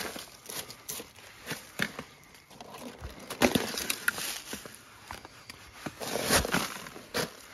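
Dry oak leaves, twigs and soil rustling and scraping as a hand brushes them off a board over an IMO collection box. The rustles come in irregular bursts, the loudest a little over three seconds in and again just past six seconds.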